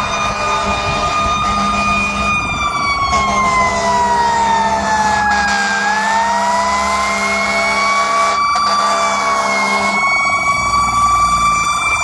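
Fire engine siren wailing as the pumper approaches: one strong tone that holds, sinks slowly over about four seconds, then climbs back up, over the truck's engine.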